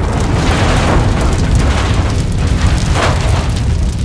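A car explosion: a deep, continuous rumbling blast with fire roaring as the wreck burns, and another burst about three seconds in.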